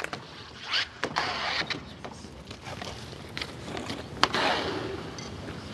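A dancer's heeled boots sliding and scuffing across a wooden stage floor, in swelling scrapes, with a sharp heel knock about a second in and another about four seconds in.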